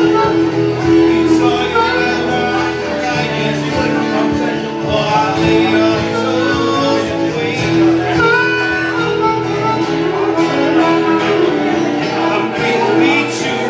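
Live harmonica solo, held and bending notes, over a strummed acoustic guitar.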